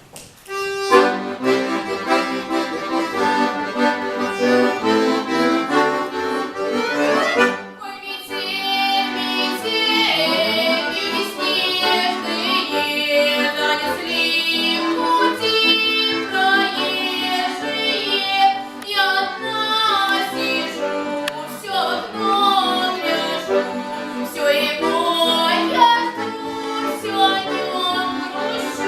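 Accordion playing an introduction in held chords, ending in a quick rising run; about eight seconds in, a girl's voice starts singing a Russian song over the accordion accompaniment.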